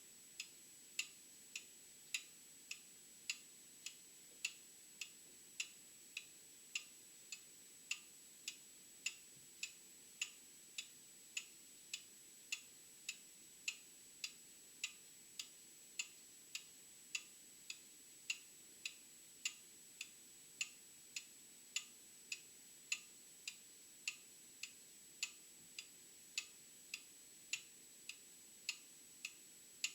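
Old mechanical clock ticking steadily, sharp, evenly spaced ticks a little under two a second.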